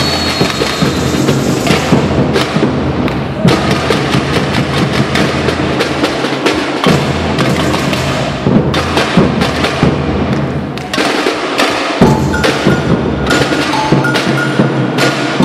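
A samba bateria playing a driving rhythm on surdo drums and hand percussion, with a director's whistle sounding for about the first second and metal bells (agogôs) ringing out near the end.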